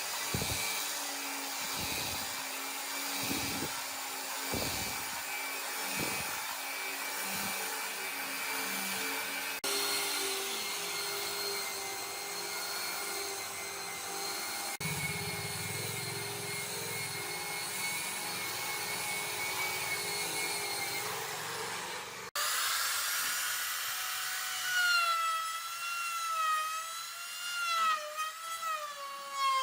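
Electric woodworking power tools running in several short clips, each cut in abruptly. The early clips have a steady motor hum with a few low thumps; in the last stretch a motor's whine wavers up and down in pitch as the tool is loaded and eased off.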